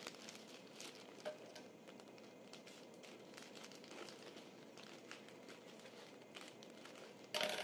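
Faint crinkling and rustling of a plastic courier mailer being pulled open and cut with scissors, with scattered soft snips and crackles.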